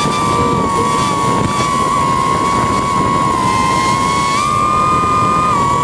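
Small drone's electric motors and propellers whining steadily, heard through its own onboard camera with wind hiss underneath; the pitch steps up a little about four seconds in and drops back just before the end.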